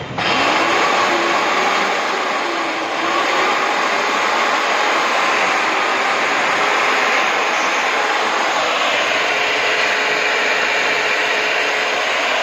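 Electric diamond core drill on its stand switched on: the motor starts suddenly and its whine rises over the first second or two. It then runs steadily at free speed, the core bit spinning in the air without cutting.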